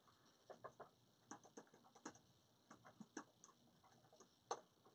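Faint, irregular tapping of someone typing a message: a dozen or so light clicks, the loudest one near the end.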